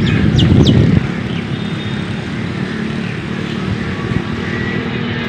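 Steady low engine-like rumble, louder during the first second, with two short high chirps about half a second in.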